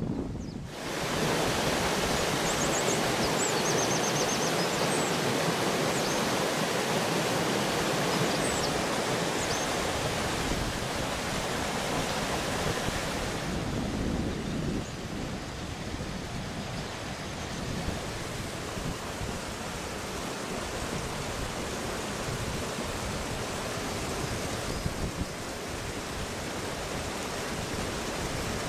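Steady rush of a mountain stream running over rocks and small cascades. About halfway through the sound turns duller and a little quieter.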